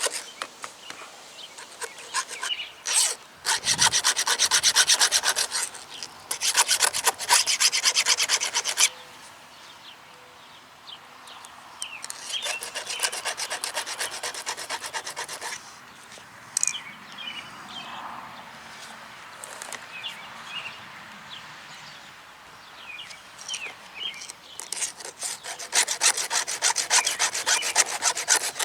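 A 3/16-inch round file rasping back and forth over the cutters of a Portland electric chainsaw's chain, resharpening a dull chain. The strokes come in four runs of a few seconds each, with quieter stretches of light clicks and ticks between them.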